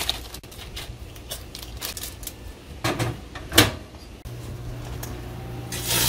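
Microwave oven door knocks shut about three and a half seconds in. A little after four seconds the oven switches on and runs with a steady low hum.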